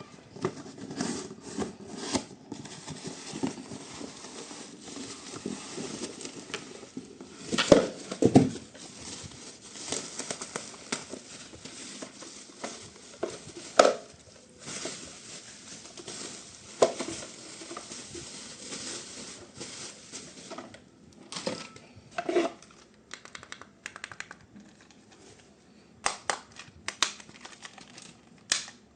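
Plastic packaging crinkling and rustling as it is handled and pulled open, with scattered clicks and a few louder knocks; the loudest knocks come about 8 seconds and 14 seconds in.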